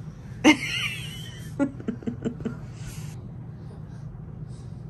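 A person laughing: a sudden high squeal, then a quick run of short chuckles. A brief rustle of fabric follows.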